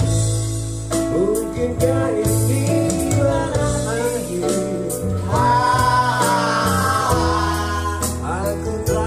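Live band playing a song: a man singing into a microphone over keyboard and electric bass guitar, the voice coming in about a second in.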